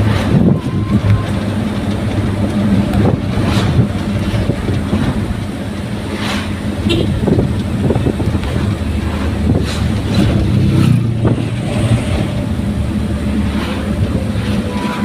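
Daihatsu Gran Max pickup on the move: steady engine hum and road noise, with a few short knocks and rattles now and then.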